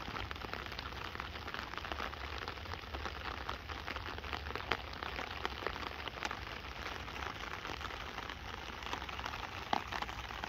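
Light rain falling on a tarp overhead: a steady hiss with many separate drop ticks.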